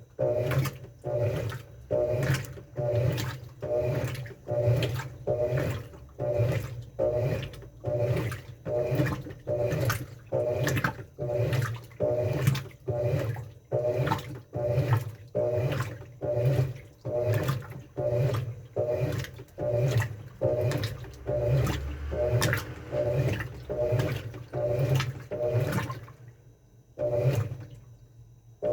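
Washing machine agitating its load in water: an even rhythm of sloshing strokes, about three every two seconds, over a steady motor hum. The strokes pause for about two seconds near the end, then start again.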